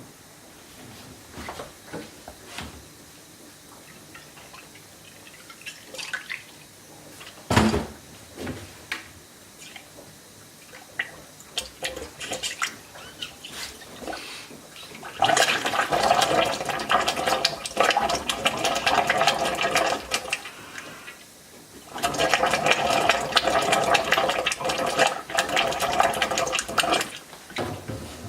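Water running in two long spells of about six and five seconds, after a stretch of scattered clicks and knocks from handling parts.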